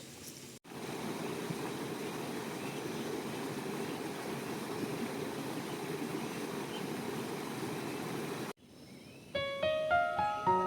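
Steady rushing noise of running water, cut off abruptly near the end, followed by keyboard music with piano-like notes starting up.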